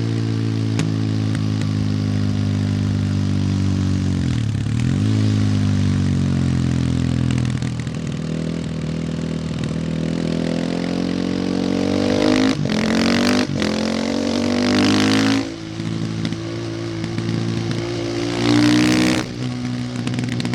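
Supermoto motorcycle engine and exhaust while riding, revs falling and rising through the gears. Two short sharp breaks in the sound come in the middle as it climbs, then brief louder throttle bursts cut off suddenly twice near the end.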